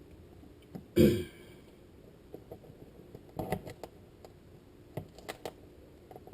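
A short grunt with falling pitch about a second in, then a few scattered clicks and knocks from a knife working on a cutting board while persimmons and their seeds are split open.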